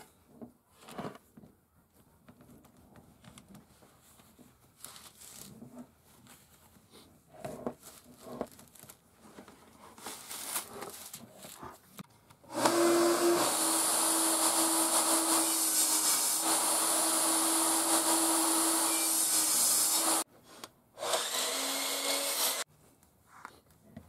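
Faint clicks and rustles of handling, then an electric power tool starts suddenly and runs at a steady, loud pitch with a hiss for about seven seconds. It stops, runs again briefly at a slightly lower pitch, and stops.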